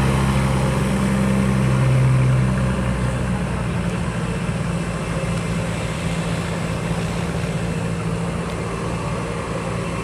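Twin-turboprop airliner at takeoff power on its takeoff roll and lift-off: a steady low propeller drone, loudest for the first two or three seconds, then fading to a lower, even engine noise as the aircraft moves away.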